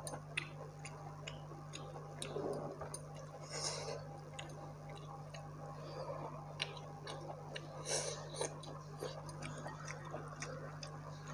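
Close-miked chewing and wet mouth sounds of a person eating by hand, with many short irregular clicks and a few soft smacks, over a steady low electrical hum.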